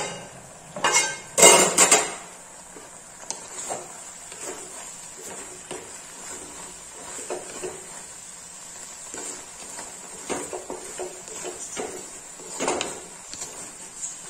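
Aluminium lid knocking against a clay cooking pot as it is lifted off, a few loud clanks in the first two seconds. Then a wooden spatula stirs and scrapes the cooked jackfruit seed pieces in the pot with soft, irregular taps.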